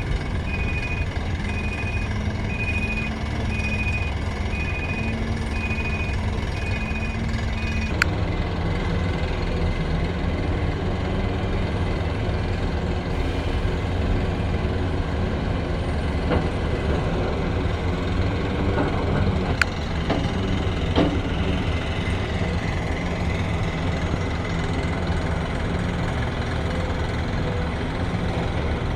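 Heavy diesel earthmoving machinery running with a steady low engine drone, with a travel/reversing alarm beeping about once a second for the first eight seconds. The beeping stops abruptly and the engine drone carries on, with a few faint clicks.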